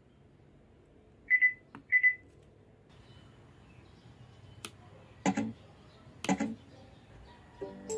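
Portable Bluetooth speaker sounding two short high beeps about a second in, the kind of tone it gives on connecting in Bluetooth mode. A few sharp clicks follow, and music starts playing near the end.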